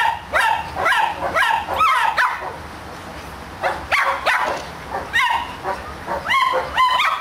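A dog yipping in quick, high-pitched yelps that each rise in pitch, several a second, with a pause of about a second and a half midway before the yelping starts again.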